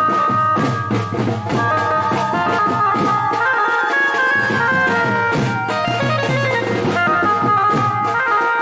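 Wedding band music: drums beating a steady rhythm under a reedy wind instrument playing sustained melody notes.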